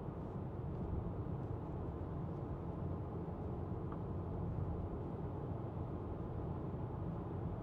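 Steady low rumble of road and tyre noise inside the cabin of a 2024 Renault Grand Koleos hybrid on the move.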